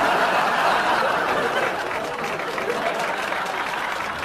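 A studio audience laughing together, loudest at first and slowly dying down.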